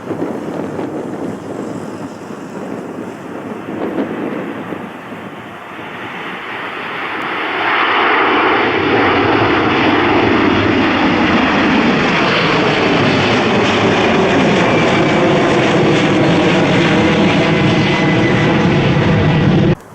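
Airliner's jet engines growing louder as the aircraft comes close, then a loud steady engine noise with a slowly falling pitch as it passes, cut off suddenly near the end.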